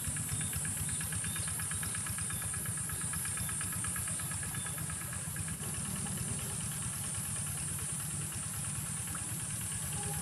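A small engine running steadily at idle in the background, with a constant high-pitched buzz over it.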